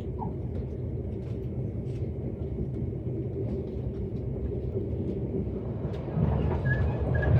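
Steady low rumble of a passenger train running on the rails, with faint clicks; the rumble grows louder about six seconds in.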